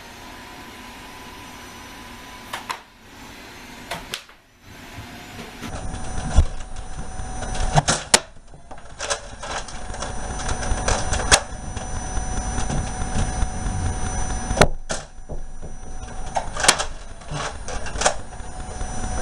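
Irregular sharp clicks and knocks of Nerf dart blasters being handled, primed and fired, over a low rumble and steady hum. The clicks come thickly from about six seconds in.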